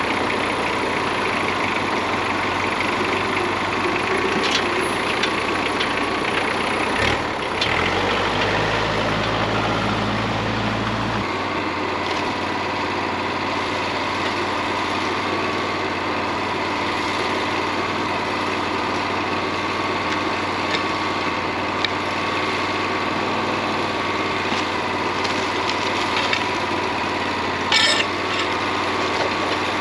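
Wood-Mizer LT40 portable bandsaw mill running steadily, its engine and band blade giving a constant whine. A deeper hum comes in for a few seconds about a third of the way through, and a short sharp clatter sounds near the end.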